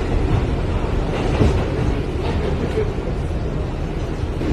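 Train running, a steady rumble heard from inside the passenger car.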